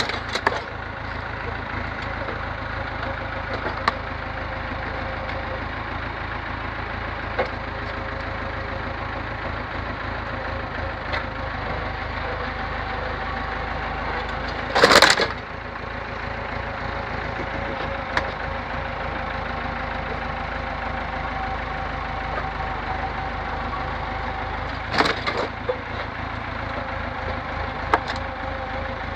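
Lawn mower being crushed under a heavy wooden block: sharp cracking and snapping of its body and engine parts, loudest in a crunch lasting about a second halfway through, with further cracks at the start and near the end. Under it the tractor's engine runs steadily.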